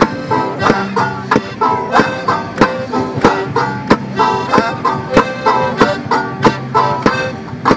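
Piano accordion and banjo playing an instrumental folk tune together: the accordion holds chords while the banjo is picked in a steady beat of about three strikes a second.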